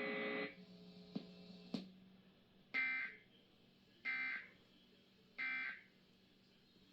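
EAS end-of-message data tones: three short, evenly spaced bursts of buzzy warbling digital tone. They signal the close of the alert. A steady buzzing sound cuts off about half a second in, and a faint low hum runs under the bursts.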